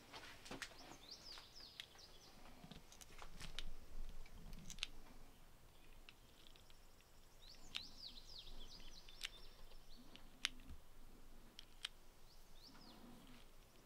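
Faint small clicks as .22 slugs are pressed one at a time into an air rifle's rotary magazine. Birds chirp in short falling calls about a second in, around the middle, and near the end.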